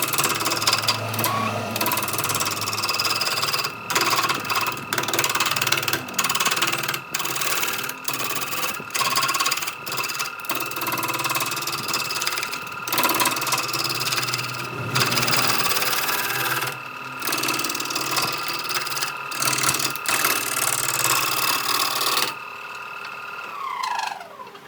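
Electric power tool running with a steady high whine and rough, uneven grinding noise as it works wood. Near the end the load comes off, and after the motor is switched off its whine falls as it winds down.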